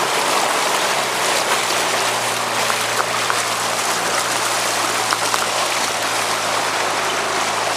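Floodwater rushing steadily in a strong current, a continuous wash of water noise, with a faint steady low hum underneath.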